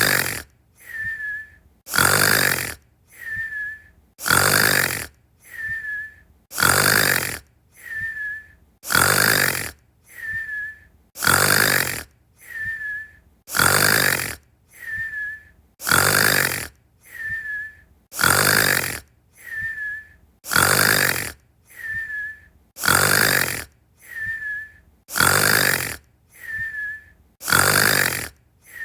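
Steady, regular snoring. Each loud snore is followed by a softer breath that starts with a short whistle. The cycle repeats a little more than every two seconds.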